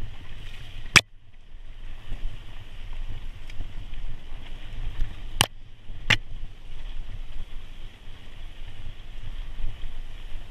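Mountain bike descending rocky dirt singletrack: wind rumble on the microphone and a steady rattle from the trail, with sharp knocks of the bike over rocks about a second in and twice more around five and six seconds in.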